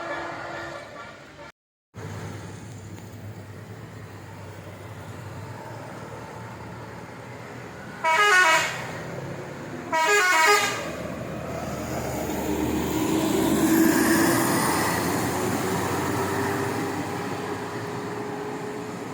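A bus's musical telolet horn sounds twice, two short melodic blasts about two seconds apart, over steady traffic rumble. After them a passing vehicle's noise swells and fades.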